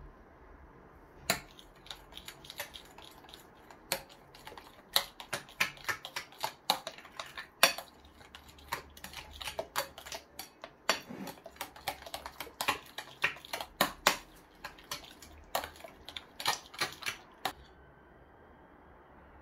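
Metal spoon clinking and scraping against a glass bowl while stirring mango purée into jelly, in quick irregular clicks that stop near the end.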